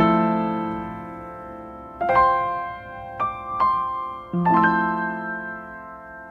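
Background piano music: notes and chords struck a few at a time and left to ring out, dying away near the end.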